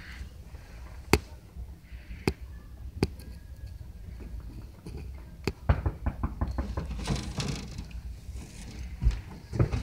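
Metal feeding tongs clicking and knocking as a feeder mouse is jiggled with them in a snake tank: scattered sharp clicks, the loudest about a second in, a quick cluster about halfway and two more near the end, over faint room noise.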